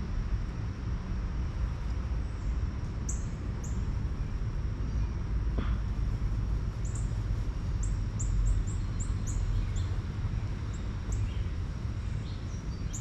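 Small birds giving short, high chirps, scattered at first and then in a quicker run through the middle, over a steady low rumble.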